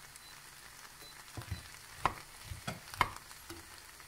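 Silicone spatula stirring brown lentils in an enamelled pot over a faint sizzle, with a handful of sharp knocks and scrapes against the pot, the loudest about two and three seconds in.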